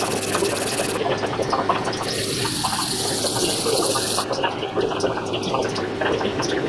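Milling machine running and cutting metal: a steady motor hum under a dense, crackling hiss with many small clicks.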